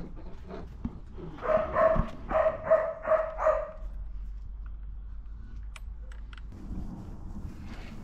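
A dog barking, a quick run of about six short barks starting about a second and a half in, followed a few seconds later by a few faint light clicks.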